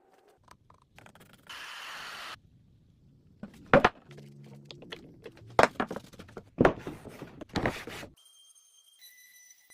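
A short hiss about two seconds in, then four loud, sharp knocks on wood about a second apart, followed by steady high beeping tones near the end.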